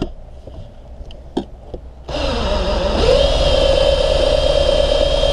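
Ryobi 18V cordless drill starts about two seconds in after a few small clicks and runs steadily, its whine climbing to a held pitch about a second later, as it turns a suction-cup winder that pulls the cutting wire through the windshield's urethane.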